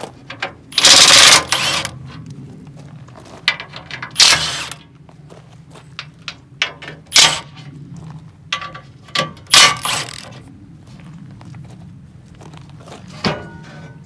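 Cordless drill whirring in four short runs as it backs the screws out of a sheet-metal cover, with small clicks of screws being handled in between. Near the end there is a single sharp knock as the metal cover is lifted.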